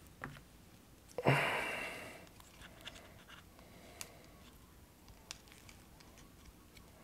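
Light clicks and taps of hands handling an opened Nintendo Switch and its battery. One sharper click comes about a second in, followed by a short hiss that fades away, then a few faint ticks.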